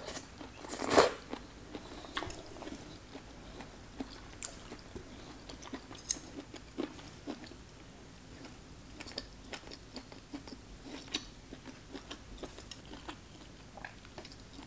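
A person eating hot pot soup close to the microphone: one loud slurp about a second in, then chewing a mouthful of pork with many small wet clicks.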